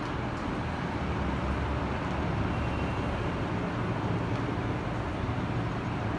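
Steady low background rumble with a low hum, like distant road traffic; no distinct clicks or knocks.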